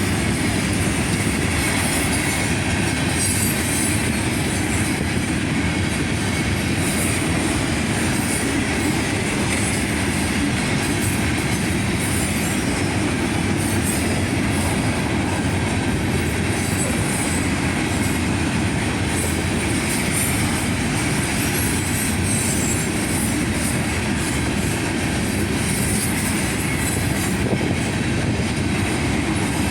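Florida East Coast freight train rolling past close by: the steady noise of wheels running over the rails, unbroken throughout.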